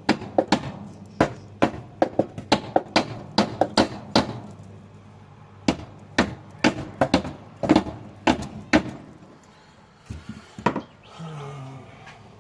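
Hammer blows in quick succession, about three a second, knocking at a part stuck fast on a lawnmower engine. They pause briefly about four seconds in, stop near nine seconds, and one last blow comes near the end.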